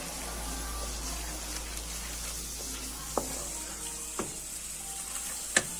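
Onion and ginger-garlic paste with ground spices sizzling in oil while a wooden spoon stirs it around the pot. Three short sharp knocks come in the second half, as the spoon hits the pot.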